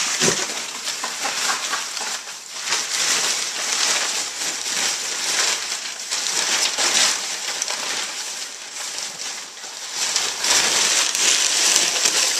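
Brown kraft packing paper crinkling and rustling as a pig roots through it and drags it about, with a rapid, irregular crackle throughout.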